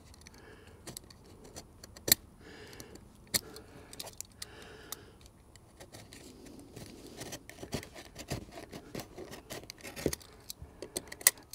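Utility knife blade scraping along a butt joint in LP SmartSide engineered-wood siding, cutting out the last slivers of old caulk. It makes a run of small, irregular clicks and scrapes.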